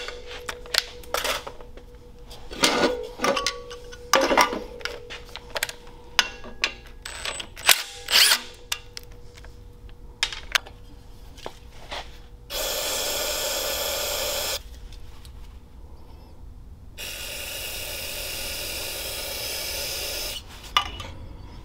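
A cordless driver backs oil drain bolts out of an aluminium engine crankcase, amid sharp metal clicks and clinks as the bolts and tools are handled. Then an aerosol can of carb and choke cleaner hisses in two long sprays, about two and three and a half seconds, flushing the crankcase drain holes.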